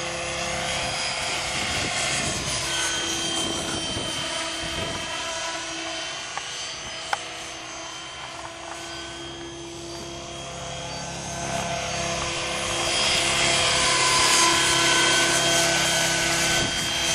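Swift 16 electric RC helicopter flying: a steady motor-and-gear whine over the swish of its main rotor blades, getting louder about two thirds of the way through.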